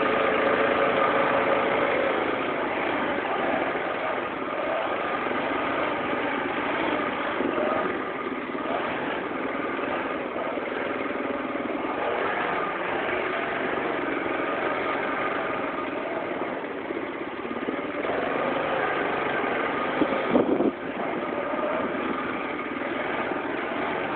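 ATV engine running at low trail speed, its pitch rising and falling with the throttle. A couple of sharp knocks stand out about twenty seconds in.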